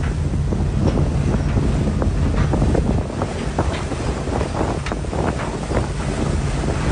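Storm-force wind buffeting the microphone on the open deck of a fishing vessel in heavy seas: a deep, steady rumble under the rush of breaking waves, with many short crackles throughout.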